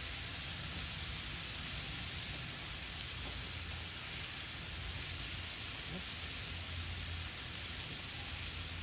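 Mushrooms and broccoli frying in a hot pan: a steady sizzle.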